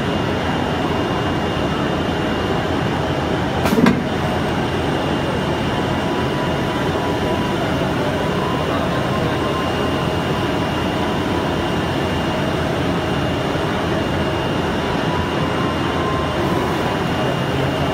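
CNC flatbed cutting table running while it cuts stickers: a steady machine noise with a faint high whine, and a single sharp knock about four seconds in.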